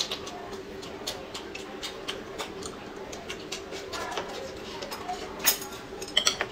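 Close-miked chewing and mouth clicks as two people eat soft pancake wraps, over a steady faint hum. Near the end come a few sharper clicks as chopsticks are picked up.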